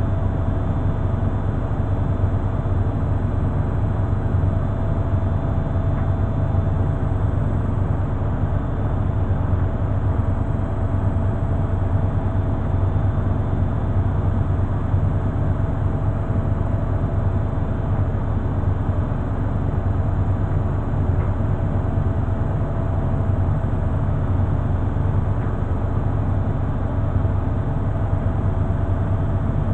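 Beko front-loading washing machine spinning its drum steadily in the final minutes of its cycle: a deep, even hum with a faint motor whine and no pauses.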